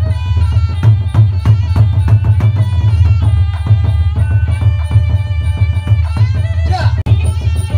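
Loud Cambodian traditional ceremonial music for a spirit-possession dance: a fast, steady drum beat of about four strokes a second under a held melodic line and heavy bass.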